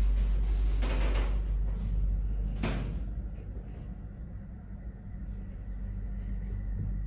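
Lift car travelling upward with a steady low rumble, its loose wall mirror panel rattling and knocking against its mounting, the sharpest knocks about a second and just under three seconds in.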